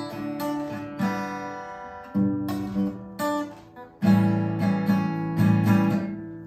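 Acoustic guitar strummed and picked live, chords ringing out, with the strongest strums from about four seconds in.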